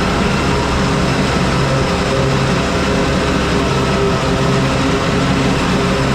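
Farm tractor engine running steadily with machinery noise, an even drone with no breaks.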